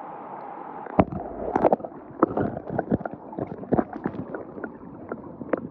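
Water splashing and sloshing in irregular bursts close to the microphone over a steady rush of river current, as a netted westslope cutthroat trout is released into the river.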